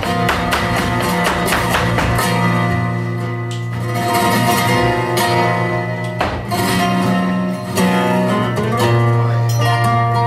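Live flamenco music: flamenco guitars playing, with many sharp percussive strikes from a dancer's heeled footwork and a cajón throughout.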